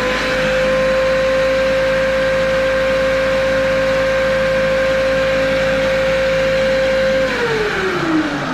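Homemade 'poor boy' lathe's electric motor spinning an antler ring blank while a pencil is eased up to it to mark the high spots: a steady whine at full speed, then falling in pitch as it winds down after being switched off about seven seconds in.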